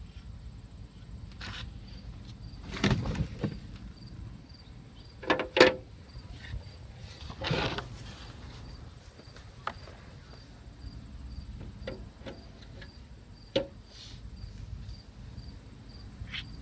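A few irregular knocks and rustles of handling, the loudest a little over five seconds in, over a steady low rumble, with a faint high chirp repeating about twice a second.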